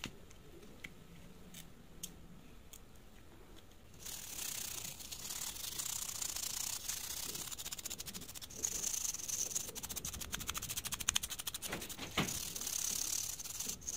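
Toothbrush bristles scrubbing a wet circuit board: a fast, scratchy brushing that starts about four seconds in, after a few faint clicks.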